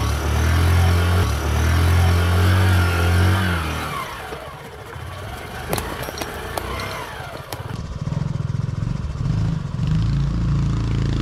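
Small single-cylinder motorbike engines on a dirt trail. One runs loud and revs up and down for the first few seconds. After a quieter stretch with a couple of sharp knocks, an engine runs steadily again.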